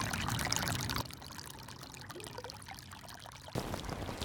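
Shallow stream of water trickling and babbling over sand and pebbles, louder for about the first second and then softer after a sudden drop. About three and a half seconds in, a low outdoor rumble takes over.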